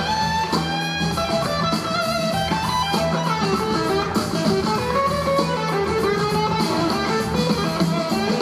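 Live blues-rock band playing: electric guitar lines with some gliding notes over drums and bass, at a steady level.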